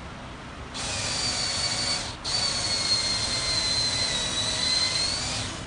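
A handheld electric power tool motor, of the drill kind, runs in two spells: a short run of about a second, a brief stop, then a longer run of about three seconds. The steady high whine sags a little in pitch near the end of the second run before the motor cuts off.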